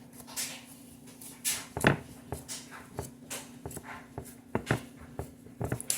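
Hands pressing and punching down sticky pizza dough in a pan: irregular soft squelches and light taps, with a steady low hum underneath.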